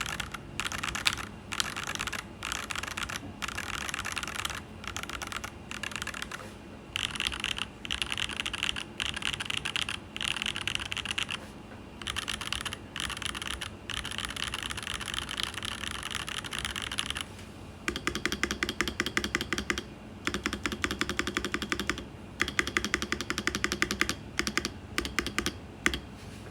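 Typing on a Mikit DK65 mechanical keyboard: bursts of key clicks with short pauses between. From about halfway through, the keystrokes come faster and more evenly, with a fuller, lower sound.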